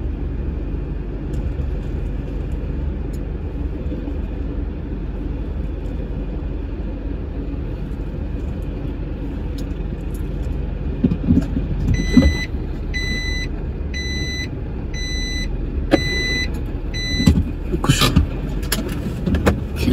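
Heavy truck's diesel engine running with a steady low rumble while it manoeuvres; about twelve seconds in, a reversing alarm beeps about eight times, a little under two beeps a second, then stops. A few short knocks and a brief hiss follow near the end.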